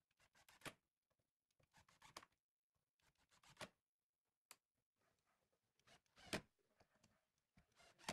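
Ozito cordless impact driver driving screws through a steel hinge into pine pallet wood, in five short bursts of rapid clicking a second or two apart. The loudest burst comes about six seconds in.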